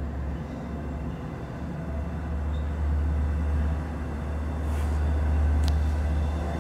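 Passenger train approaching head-on, a steady low rumble growing louder as it nears, with a short high squeal about five and a half seconds in.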